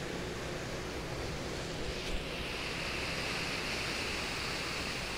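Steady rushing noise of a swollen, fast-flowing river mixed with wind on the microphone, with a faint click about two seconds in.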